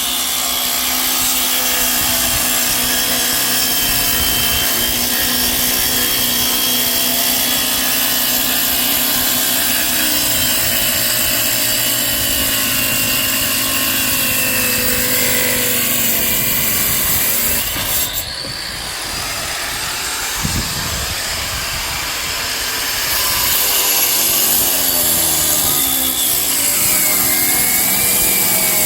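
Handheld power tool running steadily, its pitch wavering as the load changes; it eases off briefly about eighteen seconds in, then picks up again.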